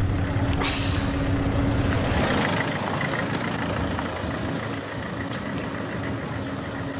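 A car running, heard from inside the cabin as it drives slowly, with a steady engine hum. The deep rumble eases about two seconds in, leaving a steady hiss.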